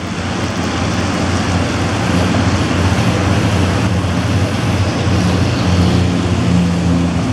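Diesel-electric locomotive running with a steady low engine drone over a broad rumble of the moving train. The sound fades in over the first second.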